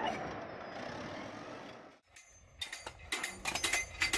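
Machinery noise fading out. After a brief break, a run of irregular sharp clanks and knocks follows.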